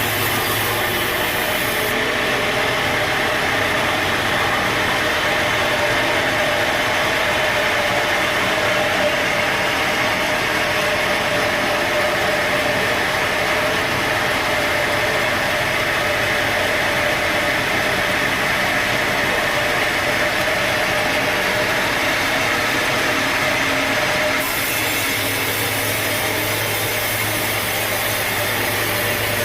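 Sawmill machinery running steadily, with a continuous engine-like drone. The sound changes character about two seconds in and again near the end.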